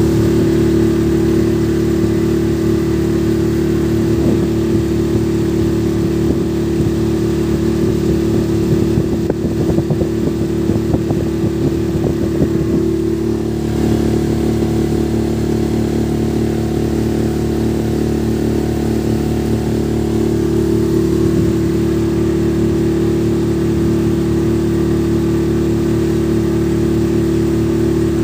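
Motorboat engine running at a steady pitch, heard from aboard the boat, with a rougher, more uneven stretch around the middle.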